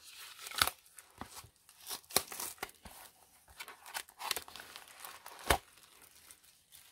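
Clear plastic film wrapper crinkling and tearing as it is pulled off a pack of patterned craft paper, an irregular run of sharp crackles with a few louder snaps about half a second, two seconds and five and a half seconds in.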